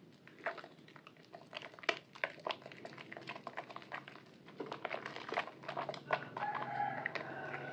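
Soaked Purbasari white bar soap squeezed and rubbed between wet hands in sudsy water: quick irregular wet squishing and crackling of mushy soap and lather.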